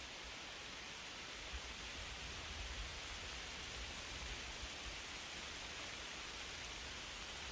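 Wind blowing through trees, a steady rushing rustle of leaves with a low, uneven rumble of gusts underneath.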